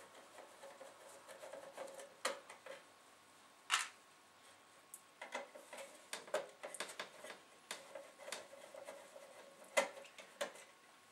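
Screwdriver undoing the screws of the circuit board inside a Denon DN-D4000 twin CD player: faint, irregular clicks and scrapes of metal, with a few sharper ticks.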